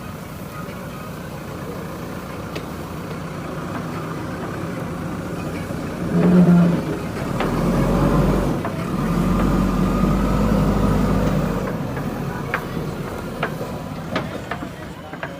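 JCB 3DX Super backhoe loader's diesel engine running, rising in level and working harder for a few seconds midway, then easing off. A few sharp knocks come near the end.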